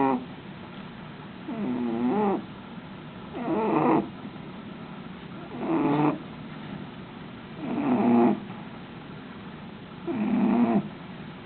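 English bulldog snoring in its sleep: a pitched snore about every two seconds, each lasting under a second.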